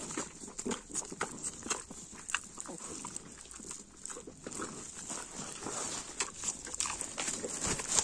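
An animal's sounds: many short, irregular clicks and snaps.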